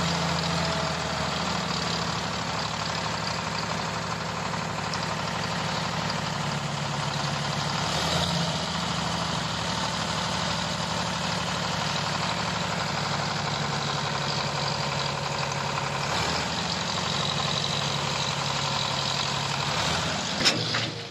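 Sonalika tractor's diesel engine running steadily, driving the hydraulics that tip a loaded trailer of wet mud.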